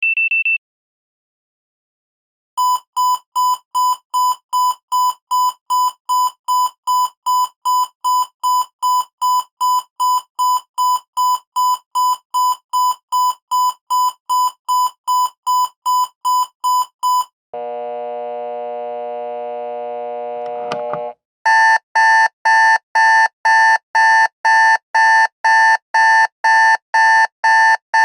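Electronic alarm clock sounds in sequence: the end of a short high beep, then rapid even beeping at about three beeps a second for some fifteen seconds. A steady low buzz follows for about four seconds, then a louder pulsing buzz-alarm sounds about two to three times a second.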